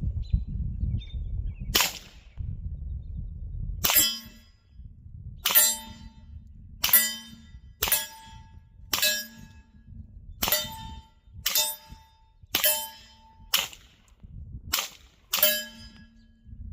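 A suppressed 9mm pistol firing 147-grain subsonic rounds, about a dozen shots at an uneven pace of roughly one a second. Each report is a muted crack followed by a brief metallic ring.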